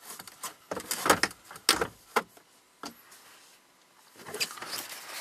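Factory car radio head unit's metal chassis and the plastic dash trim knocking and clicking as the unit is handled and set into the dash opening. A quick cluster of sharp knocks comes in the first two seconds, one more follows shortly after, and a softer rustle of handling comes near the end.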